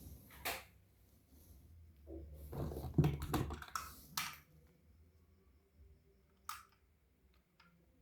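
Handling noises from plastic toys or their packaging being unboxed: scattered light clicks, with a busier stretch of clicking and rattling about two to four seconds in.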